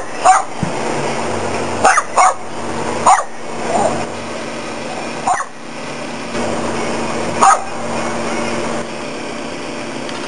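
A dog barking in short, sharp single barks, about seven of them at irregular intervals, over a steady low background hum.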